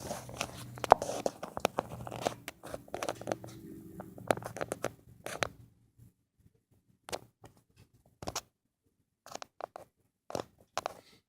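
Irregular scratching and clicking noises, dense for the first five seconds or so over a faint low hum, then only scattered single clicks.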